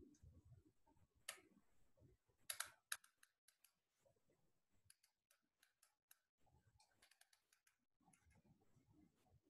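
Faint, irregular clicks and taps at a desk, with a few sharper clicks about a second in and a quick cluster of them about two and a half seconds in.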